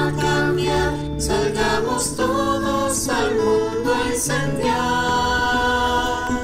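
Several voices singing a Spanish-language Christian worship song together, with acoustic guitar accompaniment.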